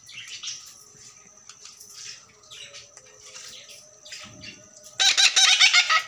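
Parrots chirping faintly on and off, then about a second of loud, rapid, harsh calls near the end.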